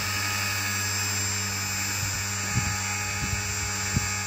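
Align T-Rex 450 electric RC helicopter in a Lama scale body, flying with a steady rotor hum and a high motor whine. A few short low thumps come between about two and a half and four seconds in.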